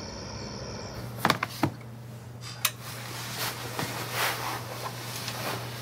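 Quiet room tone with a steady low hum, broken by a few sharp clicks in quick succession about a second in, another click a little later, and soft rustling after that.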